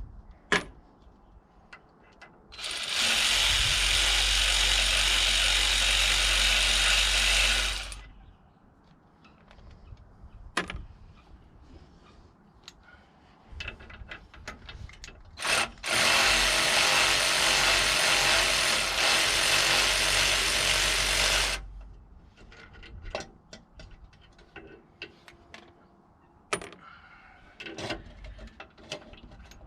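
Electric ratchet running in two bursts of about five seconds each, with scattered clicks and knocks of tool handling between them.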